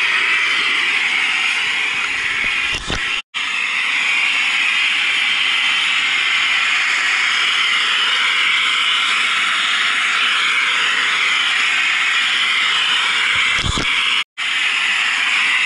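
Brass petrol blowtorch burning with a steady, loud hiss as its flame plays on an aluminium strip, heating it to anneal it. The sound drops out for an instant twice.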